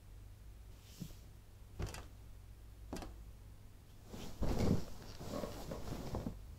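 Three sharp knocks about a second apart, then a heavy thump and a run of rustling and knocking as a person scrambles onto a wooden-framed bed, its quilt and bedding rustling.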